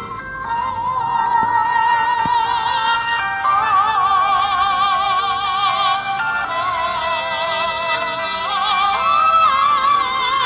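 Wordless operatic-style singing in a high voice, a melody held on long notes with heavy vibrato, over musical accompaniment, with a short upward slide near the end.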